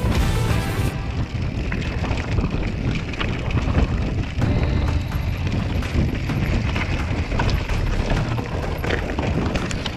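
Mountain bike rattling and clattering over a rough trail, with many sharp knocks from the bike and wind buffeting the camera microphone. Music plays in the first second.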